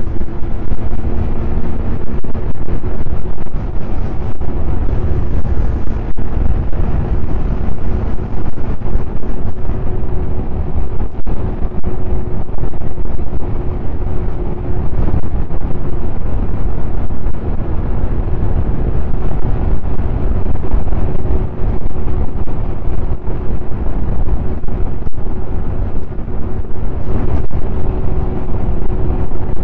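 Snowmobile engine running steadily at trail speed, holding an even pitch, with wind buffeting the microphone in a constant low rumble.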